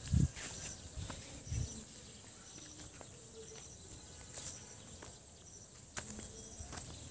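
Footsteps on a dirt path, with two heavier thumps in the first two seconds, over faint outdoor ambience with short high chirps. A sharp click sounds about six seconds in.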